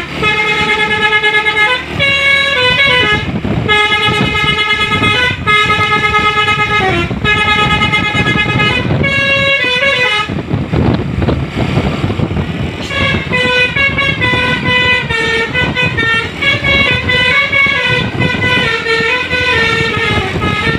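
Telolet basuri multi-tone musical air horn on a tour bus, playing a melody of held notes that step up and down. About ten seconds in the tune breaks off for a few seconds under a rush of noise, then starts again.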